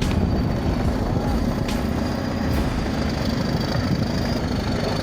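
Bulldozer engine running steadily under load, with a couple of sharp knocks from about 1.7 and 2.6 seconds in.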